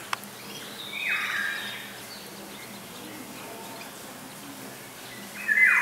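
Lesser whistling ducks calling: a high whistled call about a second in and another, louder, near the end. A sharp click sounds just after the start.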